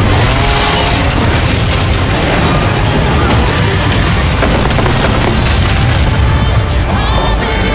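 Loud, dense epic music with a heavy booming low end and no vocals; held tones come in near the end.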